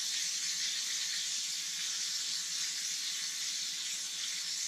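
Flour-dredged walleye pieces frying in hot oil, a steady sizzle.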